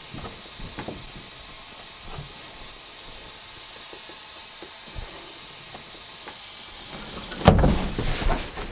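Faint steady hiss with a few small scattered knocks, then a sudden loud clatter and rustle lasting about a second near the end as the handheld camera is moved quickly.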